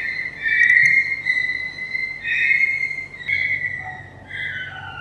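A young monkey's high-pitched cries: a run of thin, drawn-out calls, the last two sliding down in pitch near the end.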